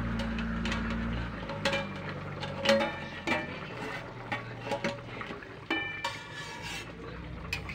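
Long metal spoon stirring and scraping a watery vegetable curry in a metal kadai, with scattered knocks and clinks of metal on metal and a short ringing clink about six seconds in, over a low steady hum.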